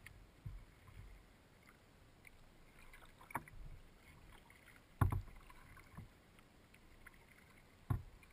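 Paddling on calm water with faint water noise, broken by four short, hollow knocks against a canoe's hull; the loudest comes about five seconds in.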